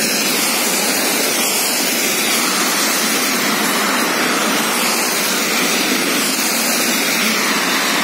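Steady, even hiss of traffic on a wet multi-lane road, tyres swishing on wet asphalt, mixed with falling rain.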